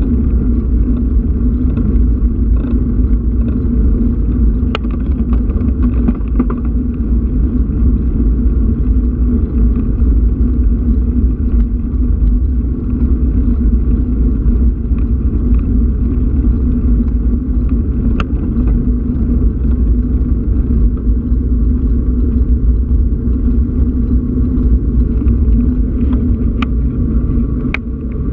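Steady loud rumble of wind buffeting a moving action camera's microphone mixed with tyre noise on tarmac, with a few faint clicks.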